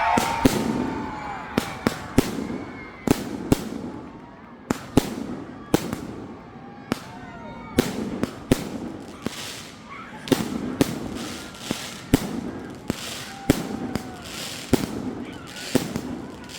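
Fireworks going off in quick succession, a sharp bang every half second to a second, each followed by a short rumbling tail.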